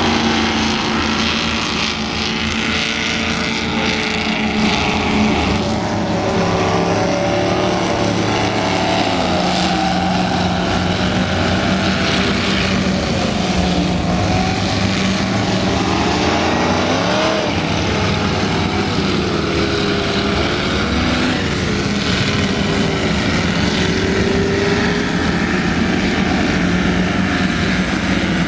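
Offshore racing powerboats' engines running hard as the boats accelerate past one after another. Several engines overlap at a steady level, and their pitch rises and falls again and again as each boat throttles up and goes by.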